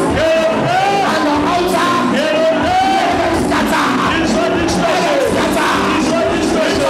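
Congregation praying aloud all at once, many voices calling and shouting over one another, over music.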